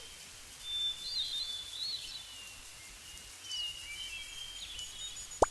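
Faint birds chirping over a soft outdoor background, with a few short calls scattered through. Just before the end comes a brief, sharp rising swoop, the loudest thing in it.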